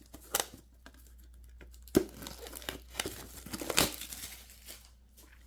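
Plastic wrapping being torn and crinkled off a metal Pokémon card tin, with scattered crackles and sharp clicks about two seconds and four seconds in.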